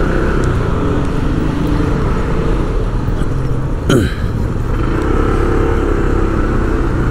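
Street traffic: motor vehicle engines, motorcycles among them, running close by, with a brief falling-pitch sound about four seconds in.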